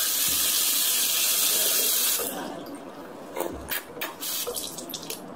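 Tap water running into a bathroom sink while hands are washed under it. The flow stops about two seconds in, leaving a few short splashes and drips.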